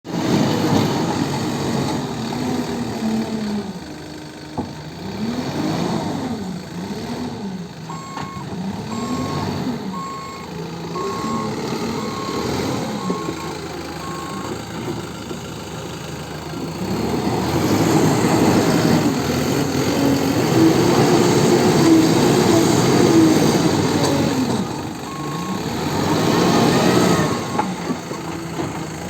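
Tata Hitachi Shinrai Prime backhoe loader's diesel engine working under load, its pitch rising and falling again and again as it revs, louder in the second half. A reversing alarm beeps steadily for several seconds about eight seconds in, and again briefly near the end.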